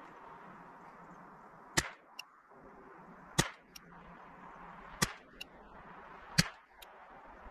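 Four .22LR rifle shots from a KIDD 10/22, about one and a half seconds apart, each followed by a faint click.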